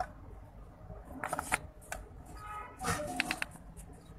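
Light clicks and knocks of a bowl and wooden spoon against a nonstick pan as cornflour is tipped in, in two small clusters.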